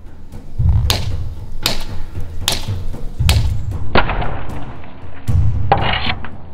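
A large fixed-blade knife chopping into the base of a bamboo stalk: several sharp chops, roughly one a second, over background music with a low beat.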